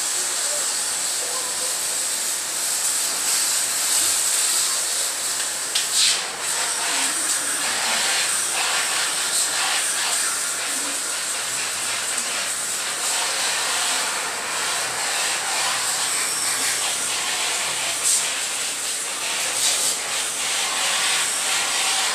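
High-pressure water jet spraying into a split-type aircon's indoor unit, washing the evaporator coil: a steady hiss with a few brief sharper spots.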